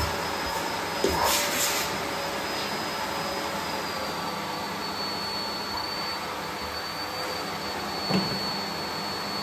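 Vacuum cleaner running steadily, a continuous rushing noise with a thin high whine, and a couple of short knocks of the nozzle, about a second in and again near the end.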